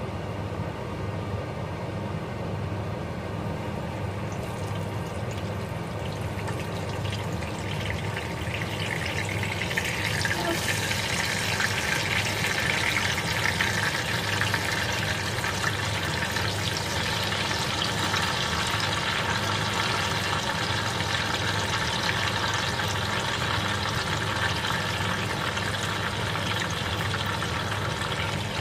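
Pieces of tempeh sizzling in hot oil in a saucepan. The sizzle starts about a third of the way in, is loudest for a few seconds, then settles to a steady frying hiss over a low steady hum.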